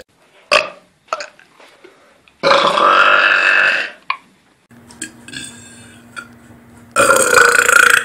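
Deliberate loud human belches: a short one about half a second in, a long belch of about a second and a half a few seconds in, and another loud belch from a second man near the end.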